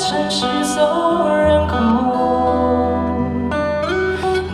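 A man singing a song live into a microphone over guitar accompaniment.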